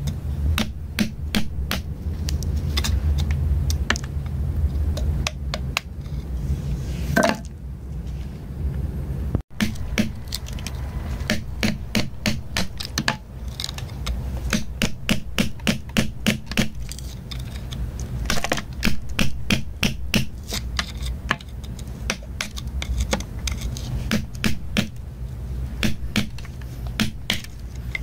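A metal digging tool tapping and scraping at crumbly rock around embedded crystals, in quick, irregular clicks several times a second over a low steady rumble. The sound cuts out for an instant about nine and a half seconds in.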